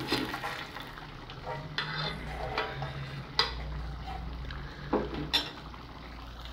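Blue enamelware frying pan handled on a gas stove's metal grate while oil is swirled in it: a few sharp knocks and scrapes, one about three seconds in and two close together near five seconds, over a steady low hum.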